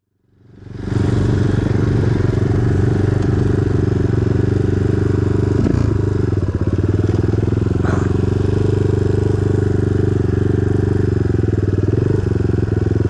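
SSR Motorsports SR189 pit bike's single-cylinder four-stroke engine idling steadily, fading in over the first second.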